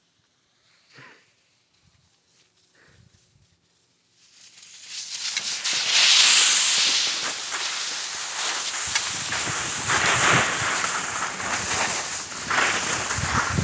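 Almost silent for about four seconds apart from a few faint short sounds. Then a loud, steady hiss and scrape of skis carving over snow starts and runs on, with wind buffeting the microphone as the camera skis downhill.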